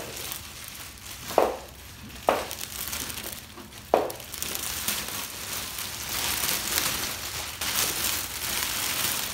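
A thin plastic bag crinkling and rustling as it is pulled off an air fryer, the crinkling getting busier in the second half. Three short knocks stand out in the first four seconds.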